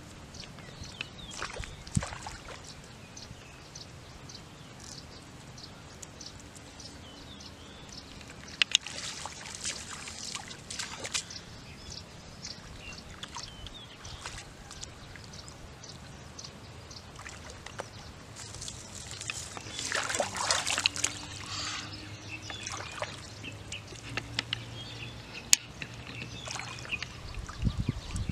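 Shallow muddy pond water sloshing and splashing as a person wades and works her hands through it, with two stretches of busier splashing, about a third of the way in and again past the middle.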